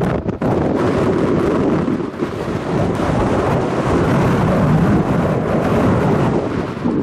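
A strong gust of wind buffeting the microphone, a loud deep unpitched roar that holds for several seconds and drops away near the end.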